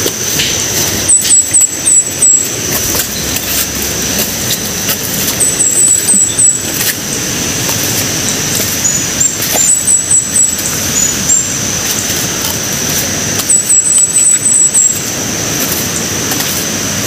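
Loud trains of short, sharp, high-pitched chirps, four or five in quick succession, recurring every few seconds. Under them run a steady thin high whine like an insect's drone and a broad rushing noise.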